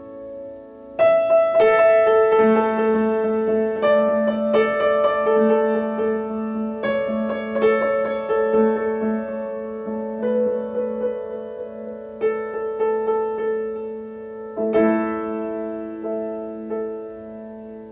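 Slow, new-age-style piano music: chords struck every second or few and left to ring, over a low note that is held from about two seconds in.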